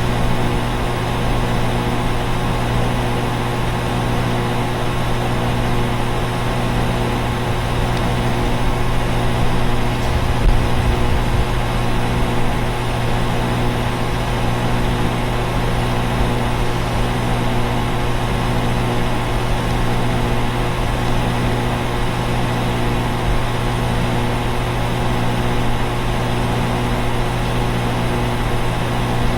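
Outdoor central air conditioner units running: a steady low hum with a constant whir of noise over it.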